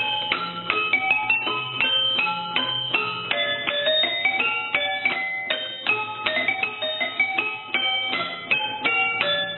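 A 1950s Barcelona-made verbena street organ playing a tune: a pinned barrel trips small hammers onto tuned metal rods, giving a quick stream of bright, ringing struck notes over a recurring low note.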